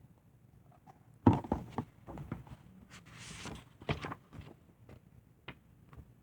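Handling noise from a picture book being read: a sharp thump about a second in, then scattered knocks and rustling, with a short papery swish like a page being turned.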